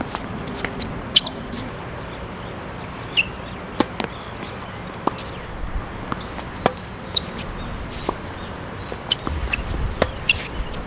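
Tennis rally on a hard court: sharp pops of the racket strings striking the ball and of the ball bouncing, at irregular intervals. Wind rumbles on the microphone near the end.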